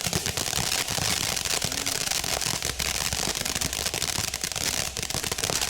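Ground firework going off with dense, rapid crackling over a steady hiss.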